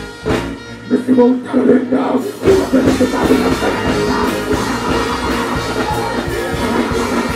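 Live dancehall music played loud over a stage PA system, a rhythmic backing track with the artist's voice on the microphone. The deep bass and kick come in about two and a half seconds in.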